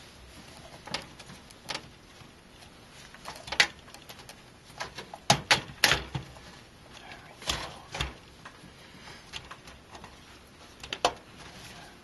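Scattered sharp clicks and knocks, about ten, as a motherboard is pressed down and nudged against the metal standoffs and I/O panel of a computer case while being seated. The loudest cluster comes around the middle.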